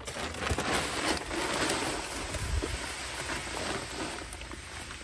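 Grass seed pouring from a bag into a broadcast spreader's hopper, a steady rain-like hiss that eases off near the end.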